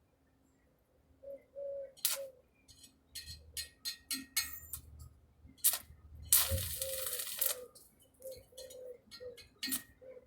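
A pigeon cooing in short low notes, mixed with scattered sharp metallic clicks and taps. A loud crackling hiss lasting a little over a second comes about six seconds in.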